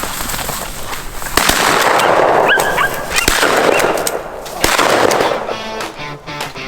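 Shotgun shots at a flushing game bird: three sharp reports, about a second and a half in, at the middle, and about two-thirds through, each trailing off. Guitar music comes in near the end.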